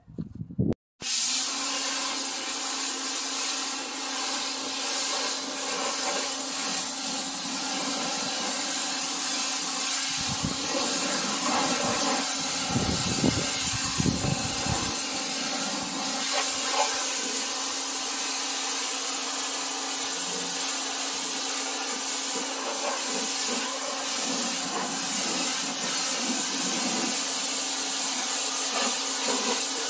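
Pressure washer running steadily, its motor and pump humming under the hiss of the water spray as the car is pre-rinsed. The sound starts suddenly about a second in, and a lower rumble joins it for a few seconds midway.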